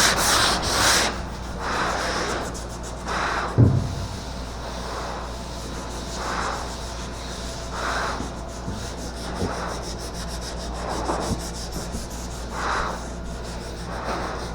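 Sandpaper being worked by hand over the primed body of a Chevy Nova to take out orange peel, in slow, even rasping strokes about one every second and a half. There is a single knock about three and a half seconds in.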